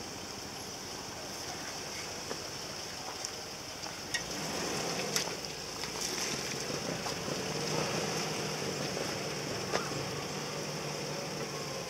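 Off-road vehicle engine running at low revs, louder from about four seconds in, over a steady high hiss, with a few short clicks and knocks.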